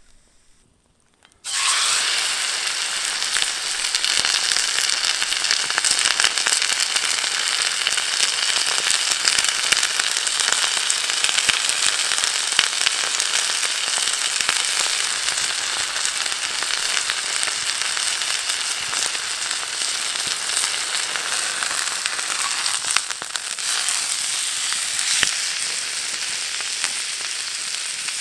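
Meat frying in a hot oiled pan over a campfire: a loud sizzle starts suddenly about a second and a half in as the meat hits the pan, then runs on steadily with constant fine crackling spatter. It dips briefly about three-quarters of the way through.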